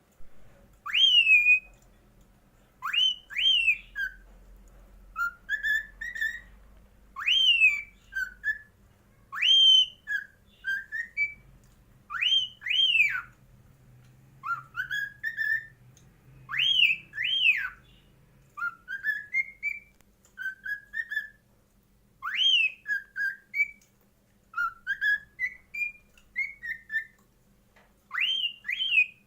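Cockatiel singing: a whistled tune of clear notes, each phrase opening with one or two sharp up-and-down whistles and trailing into lower rising notes, repeated over and over every few seconds.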